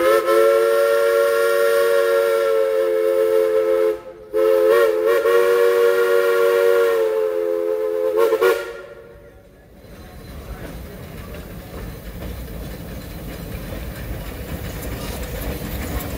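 Steam locomotive whistle, a loud chord of several notes, giving two long blasts: the first breaks off about four seconds in and the second stops after about eight and a half seconds. After it the rumble of the approaching steam train and its cars grows louder.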